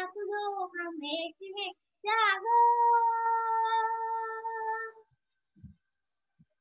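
A girl singing a Hindi patriotic song unaccompanied, ending the last phrase on one long held note that stops about five seconds in.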